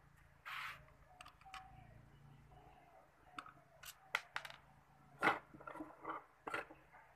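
A scattered series of short metallic clicks and light knocks, the loudest about five seconds in, from hand tools and small parts being handled during a pressure pump repair, over a faint low hum.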